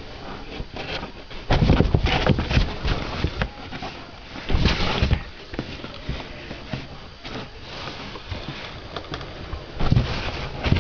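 Scratching and scuffling on cardboard as a cat paws and moves about inside a cardboard box, in a few bursts of a second or two.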